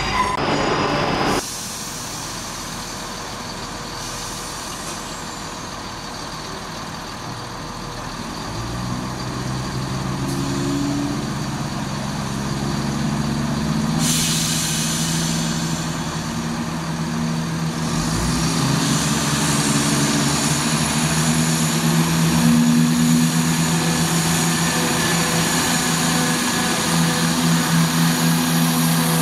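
Diesel multiple-unit trains at a station platform: underfloor diesel engines running, growing louder from about 9 s and again after about 18 s, with a spell of air hiss about halfway. The first second and a half is the running noise inside a train carriage.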